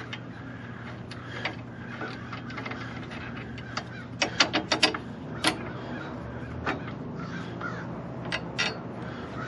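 Wrench working a bolt loose on the underside of a compact tractor: scattered metal clicks and clinks, with a quick run of them about four to five seconds in, over a steady low hum.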